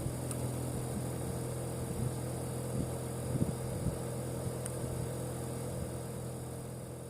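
Air-conditioner outdoor unit with its compressor running: a steady low hum with a fixed higher tone above it and an uneven low rumble underneath. The noise is complained of as loud and abnormal.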